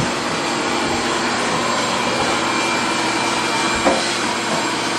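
An electric motor runs steadily with a whirring, rasping noise. There is a short knock about four seconds in.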